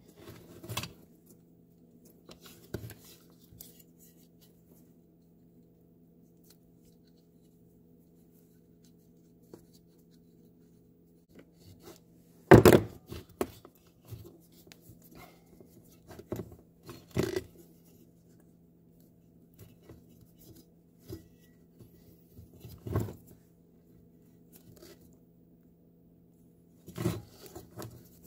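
Handling noises from threading a new starter rope into a generator's recoil starter: scattered rustles, clicks and knocks, the loudest a sharp knock about halfway through, over a steady low hum.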